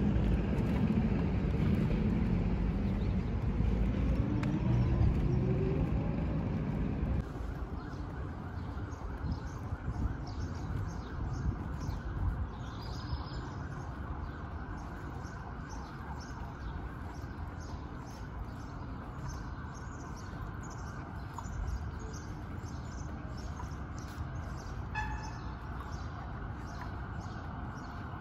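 Street ambience: road traffic rumbling, with a car's engine rising in pitch, for the first several seconds, then quieter open-air ambience with faint bird chirps.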